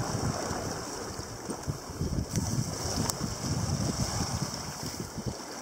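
Gusty wind rumbling on the microphone over a steady hiss of surf washing on the shore rocks.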